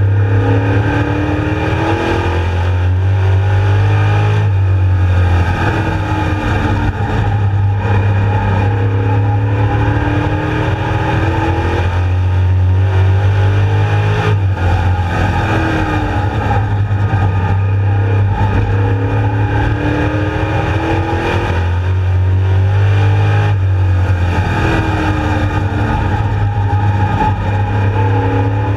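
Street Stock race car's engine heard from inside the cockpit at racing speed. Its pitch climbs as it accelerates down each straightaway and drops as the car lifts for the turns, over and over.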